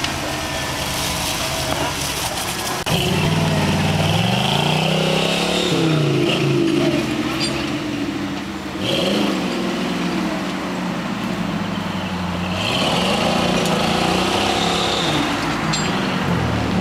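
Off-road 4x4's engine revving up and down repeatedly, louder from about three seconds in.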